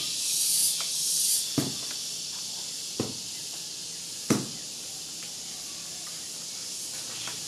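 Aerosol spray paint hissing onto a canvas in two short bursts, then three sharp knocks about a second and a half apart, the last the loudest, over a steady faint high hiss.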